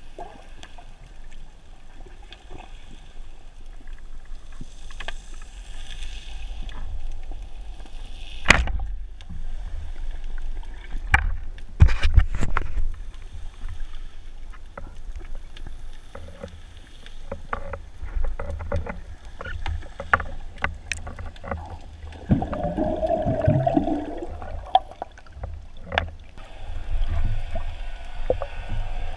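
Muffled underwater sound through a GoPro's waterproof housing: a low, steady water rumble with scattered clicks and knocks. A sharp knock comes about eight and a half seconds in, and a cluster of knocks around twelve seconds. A bubbling gurgle follows about twenty-two seconds in.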